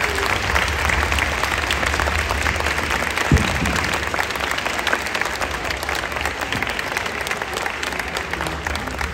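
Audience applauding, a dense clatter of many hands that tails off near the end, with one sharp thump about three seconds in.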